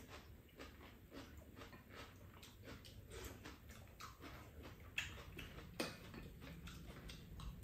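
Quiet eating at a table: faint chewing and soft clicks of spoons against bowls, with two sharper clicks about five and six seconds in.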